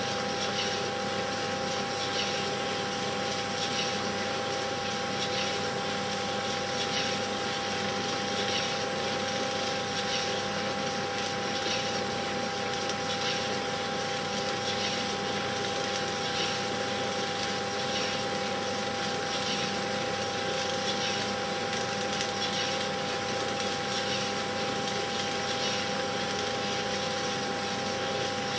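Cine film projector running: a steady motor hum and whir with hiss, and a faint soft tick about once a second.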